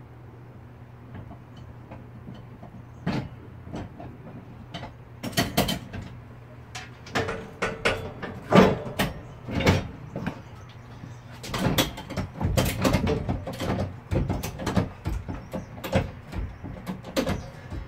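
A jack being worked under the edge of a zero-turn mower deck, raising the deck to the jack's full height: a run of irregular metal clicks and clunks starting a few seconds in.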